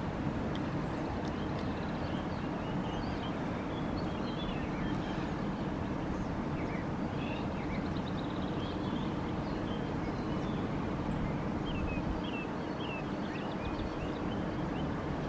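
Small birds singing, with short chirps and quick sliding notes throughout and a brief rapid trill near the middle, over a steady low outdoor rumble.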